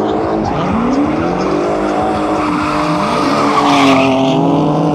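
Car engine revving up and down hard with tyre squeal, typical of a car drifting. The squeal is loudest a little under four seconds in.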